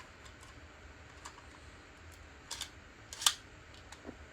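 A few scattered light plastic clicks and taps from Beyblade tops and launchers being handled, the loudest just past three seconds in.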